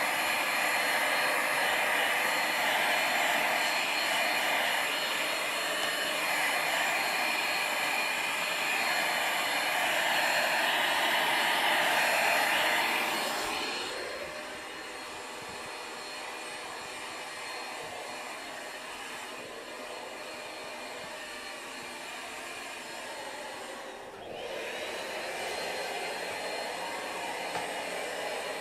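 Cordless handheld vacuum cleaner running with a steady whoosh. About halfway through it drops to a quieter, steady level. Near the end it dips briefly, then comes back somewhat louder.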